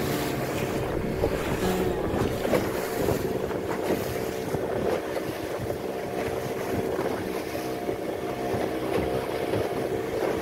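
Boat engine running steadily while the boat is underway, with wind buffeting the microphone and water washing past.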